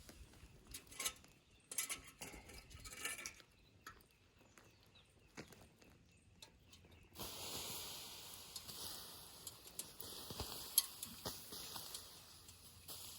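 Light clinks and knocks of camp kettle gear and utensils being handled. About seven seconds in, a soft steady hiss starts and fades out about five seconds later.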